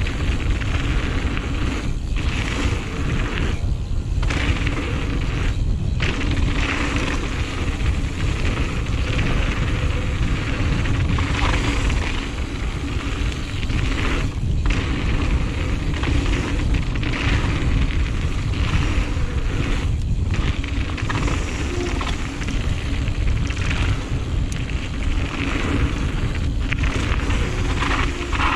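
Giant Reign full-suspension mountain bike rolling fast down a dirt flow trail: tyre noise on the trail surface and the bike rattling, under heavy wind rumble on the action-camera microphone, with brief dips in the noise every few seconds.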